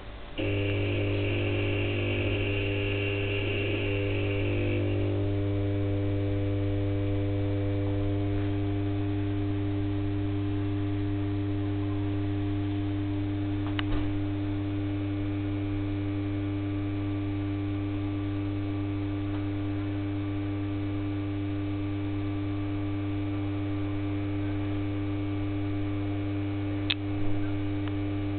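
The magnetic ballast of a Philips SON-H 210 W high-pressure sodium lamp starts humming suddenly as the lamp strikes, then holds a steady mains hum. A higher buzz rides on it for the first few seconds and then settles. There are two short sharp clicks later on.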